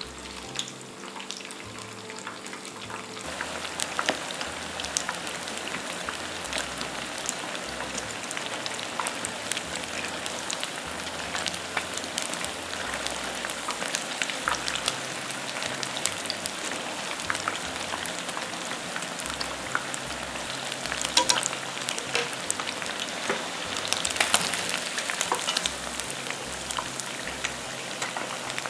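Battered chicken pieces deep-frying in hot oil: a steady sizzle dotted with crackling pops, getting louder about three seconds in.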